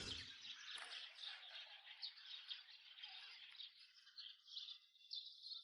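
Near silence: faint outdoor background with light, distant bird chirping, which dies away shortly before the end.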